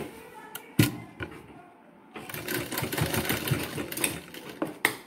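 Sewing machine stitching a short seam run of about two and a half seconds, starting about two seconds in. A sharp click comes about a second in and another just before the end.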